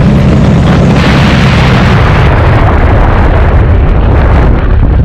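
Motorcycle engine running at speed under heavy, distorting wind noise on the rider's camera microphone. The engine's steady note drops away about two seconds in, leaving mostly wind.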